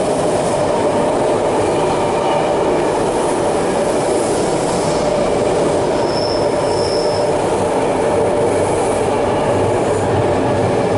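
BART train running on the elevated tracks overhead: a steady loud rail rumble with a sustained whine, and a brief high wheel squeal about six seconds in.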